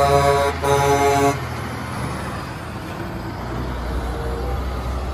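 Semi-truck's air horn sounding two blasts of a multi-tone chord, the second cutting off about a second and a half in, then the truck's diesel engine running low and steady as it passes.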